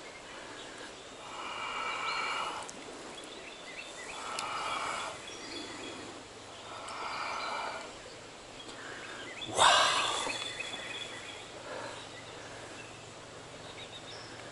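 Stream water sloshing in three soft surges around a large brown trout held in the current to recover, then one sharp splash about two-thirds through.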